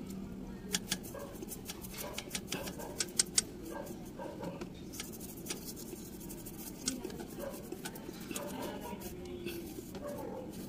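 A small brush scrubbing the carbon-fouled bore of a throttle body, with scattered sharp clicks and taps of the brush and tool against the metal. There is a short run of louder clicks about three seconds in.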